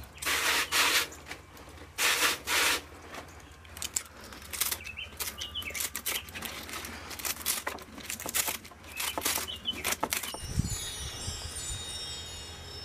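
Kale and collard leaves rustling as they are handled, then a run of sharp snips as scissors cut the leaves and stems into a colander. Near the end there is a high, sparkly chime.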